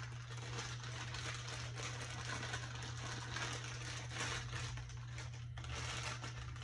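Crinkling plastic wrapping as it is handled and pulled off a new camera tripod: a steady run of small crackles and rustles over a constant low hum.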